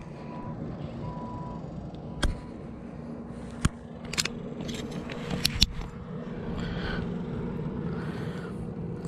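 Rod, reel and hands at work as a small largemouth bass is brought to the boat and taken in hand: scattered sharp clicks and knocks over a steady low hum.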